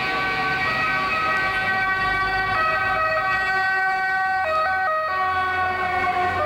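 Sustained electronic chord of several steady held tones, with a brief step down and back up in pitch about four and a half seconds in.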